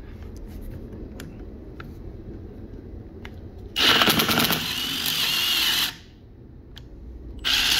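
Power drill boring a hole into a wooden table leg, in two runs of about two seconds. The second run starts near the end.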